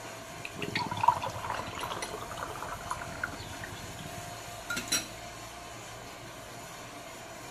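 Juice poured from a can into a glass mug for about three seconds. Near the five-second mark there are two sharp clicks.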